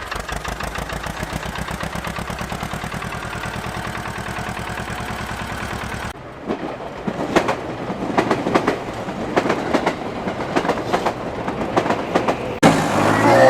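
A small tractor engine chugging steadily with a fast, even beat. About six seconds in it cuts abruptly to irregular clicks and knocks, and near the end there is another sudden change to a louder sound.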